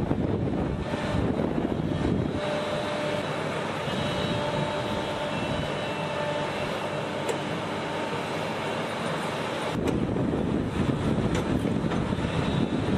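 Heavy machinery running: a rough, loud machine noise, changing abruptly about two seconds in to a steadier engine sound with faint steady tones, then the rough, heavier noise returning near the end.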